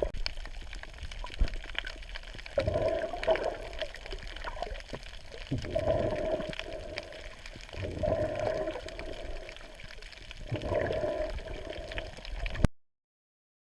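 Water gurgling and sloshing, in repeated surges every two to three seconds; the sound cuts off abruptly near the end.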